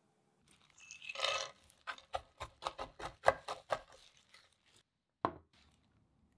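Chef's knife chopping pistachios on a wooden cutting board: a quick run of sharp chopping strikes, about four to five a second, after a brief noisy rustle, with one more lone strike near the end.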